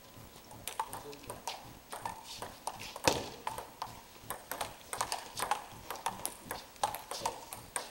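Table tennis rally: the ball clicking in an irregular series off the table and the paddles, with one louder hit about three seconds in.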